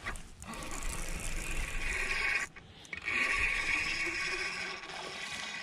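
Spinning reel cranked quickly, its gears whirring, as a hooked crappie is reeled in. It comes in two spells with a short pause about two and a half seconds in.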